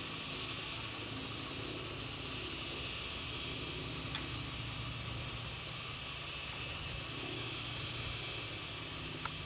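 Steady chorus of insects, an even high buzzing that does not change, over a low steady hum, with a faint click about four seconds in and another near the end.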